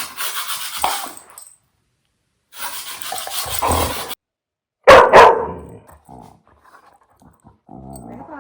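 Pit bull puppy barking twice in quick succession about five seconds in, the loudest sound here. Before the barks come two stretches of hissy rasping noise, and a short low pitched sound follows near the end.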